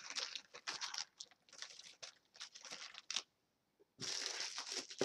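Clear plastic packets crinkling and rustling in irregular bursts as they are handled and moved. There is a short pause a little over three seconds in, then a denser run of crinkling from about four seconds.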